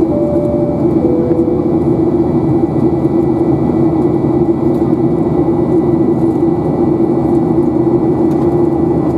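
Boeing 737-800's CFM56-7 jet engines heard from inside the cabin as a steady drone during the climb after takeoff. A two-note high-low cabin chime sounds in the first two seconds.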